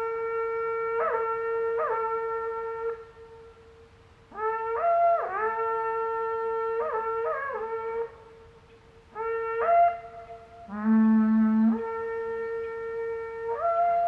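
Horagai, the conch-shell trumpet of yamabushi mountain ascetics, blown in long held calls. Each blast scoops up into its note and breaks between a lower and a higher tone, with short gaps between blasts and a brief low note about eleven seconds in.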